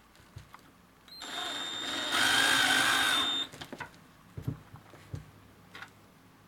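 Cordless drill with a socket bit running for about two seconds, driving a screw-in stud into the rubber sole of a jogging shoe. It runs with a steady high whine that steps up in speed and loudness about a second into the run, then stops. A few light knocks follow as the shoe and drill are handled.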